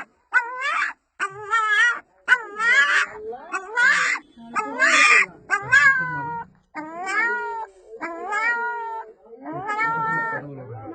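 A puppy crying in about nine drawn-out, voice-like whines, one after another, each rising and falling in pitch. It is calling for its mother.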